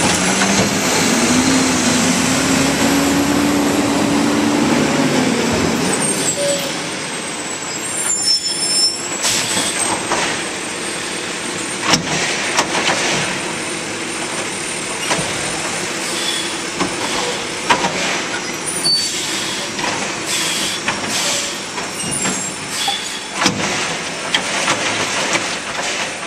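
Automated side-loading garbage truck working a pickup: the diesel engine revs up and settles over the first few seconds as the hydraulic arm runs, then many knocks and bangs follow as the arm lifts and dumps trash carts into the hopper. An air-brake hiss is mixed in.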